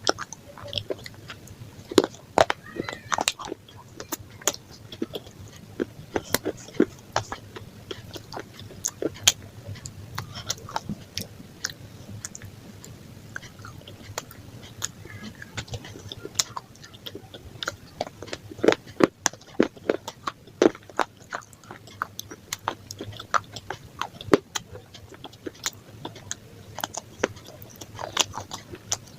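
A person biting and chewing food close to the microphone, with frequent sharp crisp crackles and wet mouth sounds at an uneven pace.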